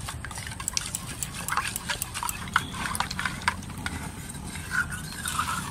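A metal spoon beating raw eggs with spices in a stainless steel bowl: quick, irregular clinks of the spoon against the bowl, several a second.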